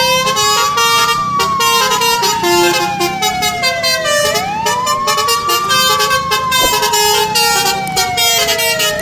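Emergency-vehicle siren wailing, a quick rise and then a long slow fall, repeating about every four and a half seconds, over a busy layer of clicks and shifting tones.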